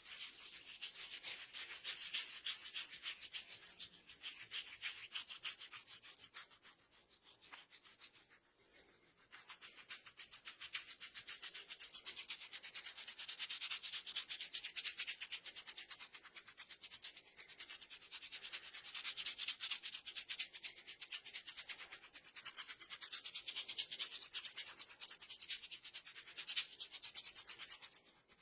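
Hands rubbing and scratching through hair on a scalp during a barber's head massage: a fast, rasping friction of many strokes a second. It dips briefly about eight seconds in and is loudest in two stretches in the second half.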